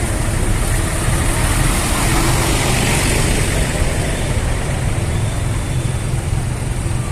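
Tour bus diesel engine running close by, a steady low rumble that swells a little about three seconds in.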